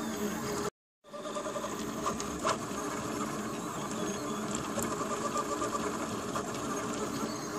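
Delta 3D printer's Nema17 stepper motors driving the print head at high speed, a rapid mechanical buzzing and chattering that changes as the moves change direction. The sound drops out completely for a split second just under a second in, then resumes.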